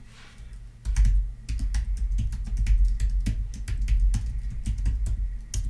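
Typing on a computer keyboard: quick keystrokes, several a second, starting about a second in, each with a dull low thump beneath the click.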